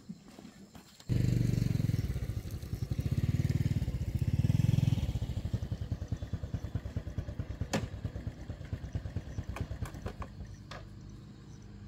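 Small single-cylinder step-through motorbike engine running as the bike rides off. It comes in suddenly about a second in, loud for the first few seconds, then chugs more quietly with a clear, even beat.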